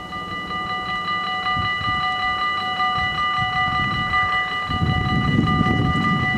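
Electric warning bells of a Dutch level crossing starting to ring, a fast, continuous metallic ringing that signals an approaching train. About two-thirds of the way in, a low rumble joins as the barrier arms begin to lower.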